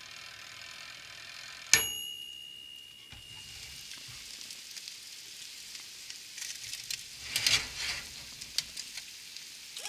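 A toaster oven runs with a steady hum, then its timer bell dings once, ringing on for about a second, roughly two seconds in. After that, salted salmon fillets sizzle on aluminium foil, with the fat crackling and spitting more loudly around seven to eight seconds in.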